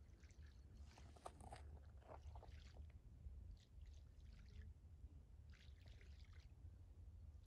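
Near silence: a faint, steady low rumble with scattered faint rustles and clicks.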